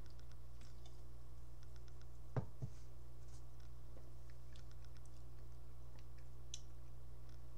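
Steady low hum with faint, scattered clicks, and two soft knocks close together about two and a half seconds in.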